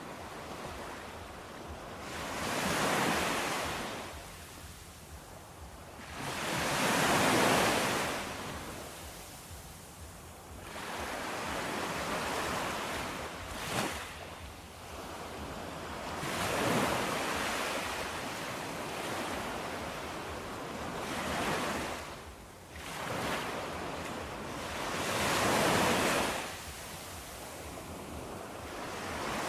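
Ocean waves breaking on a shore, the surf swelling and falling back about every four to five seconds.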